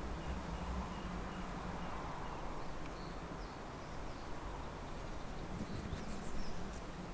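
Steady outdoor field ambience: a low continuous hum under an even hiss, with faint short bird chirps and a few faint clicks near the end.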